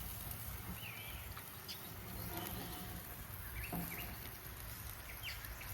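Outdoor ambience: a few short, scattered chirps over a low steady hum and faint hiss.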